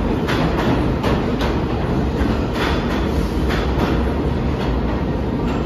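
Subway train running past, with a steady rumble and its wheels clacking over rail joints, the clacks coming in repeated pairs.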